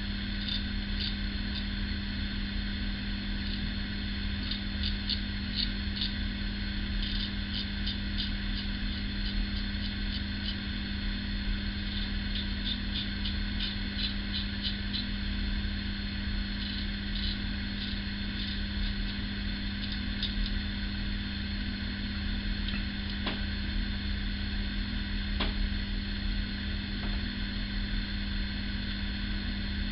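A single-edge safety razor scraping through stubble in runs of quick short strokes, heard as clusters of faint rasping ticks, over a steady low background hum. Two sharp clicks come in the last third.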